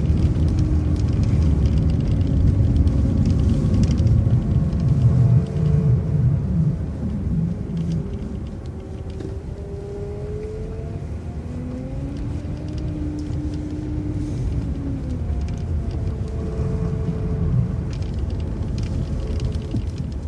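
MCO ViewMaster transit bus driving: a heavy engine rumble with a drivetrain whine that rises and falls in pitch as the bus changes speed. The rumble eases after about seven seconds as the bus slows.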